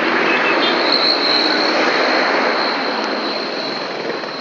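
A heavy vehicle passing close by on the road: a loud, even rush of noise that eases off slightly toward the end, with a faint high whine about a second in.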